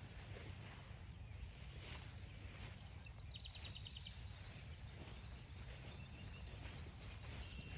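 Quiet trail ambience with a low rumble and soft swishes about once a second as the walk goes on. About three seconds in, a songbird gives a short, rapid trill of evenly spaced notes.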